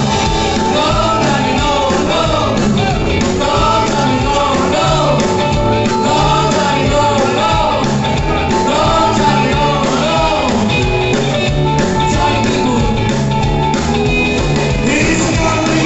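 A rock and roll song with a singer, playing steadily.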